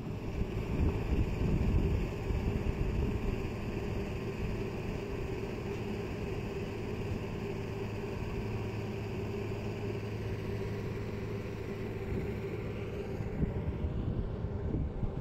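Steady drone of a river passenger launch's engine heard from on deck, with wind buffeting the microphone in gusts near the start and again near the end.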